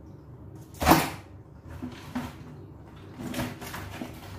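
A live crab being handled and dropped, landing with a single sharp thud about a second in, followed by softer knocks and rustling as hands work at a plastic bucket of crabs.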